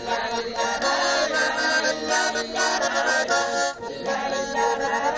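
An accordion playing a lively Chuvash folk tune, with a group of women singing along.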